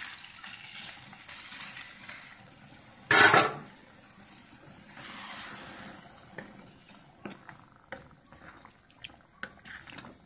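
Water pouring and splashing into a pan of chicken masala for about three seconds, then a loud half-second burst of noise, the loudest thing heard. A wooden spatula then stirs the thin gravy, with soft sloshing followed by scattered light taps against the pan.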